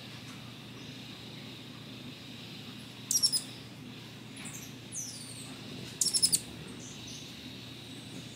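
Hummingbird calling: two short bursts of rapid, very high-pitched twittering chips about three seconds apart, with a softer falling call between them, over a steady low background hum.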